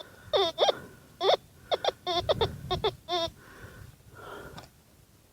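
Metal detector signalling a target: about ten short warbling tones in quick succession, each sliding in pitch, as the coil is swept back and forth over a buried metal object.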